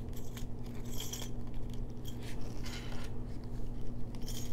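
Small metal bead caps clinking against each other as they are put into a small clear plastic bag, with the plastic crinkling in the fingers. The clicks come in a few scattered light bursts over a steady low hum.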